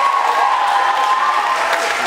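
Theatre audience applauding and cheering, with one voice holding a long drawn-out whoop over the clapping.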